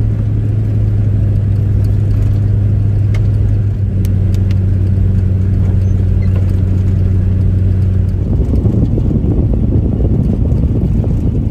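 Pickup truck heard from inside the cab while driving: a steady engine hum that, about eight seconds in, gives way to a rougher, choppier rumble.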